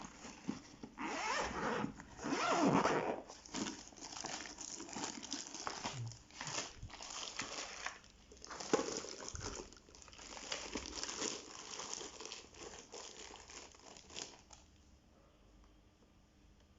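Zippered carrying pouch of an Omron nebulizer being unzipped and opened by hand, with rustling and crinkling as the pouch and its contents are handled; the handling stops a couple of seconds before the end.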